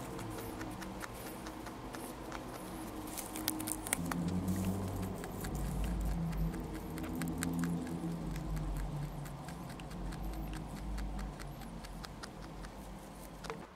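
Rabbit chewing hay close to the microphone: a fast, irregular run of small crunching clicks, with a low rumble from about four seconds in.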